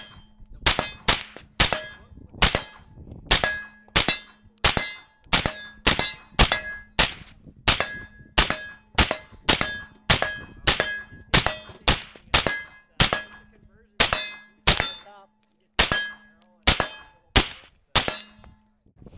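Suppressed AR-15 chambered in 7.62x39 firing a long, steady semi-automatic string of shots, about two a second, with a brief pause about fifteen seconds in.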